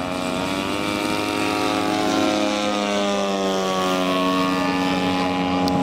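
Propeller engines of several large-scale radio-controlled model aircraft flying together, their overlapping drones sliding gently up and down in pitch as the planes pass, a little louder after about two seconds.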